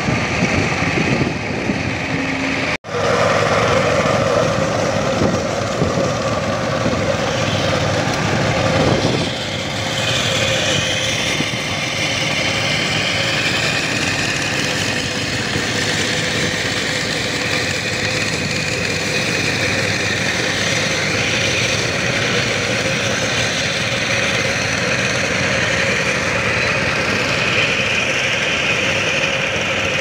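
Backhoe loader's diesel engine running steadily, with a short break about three seconds in.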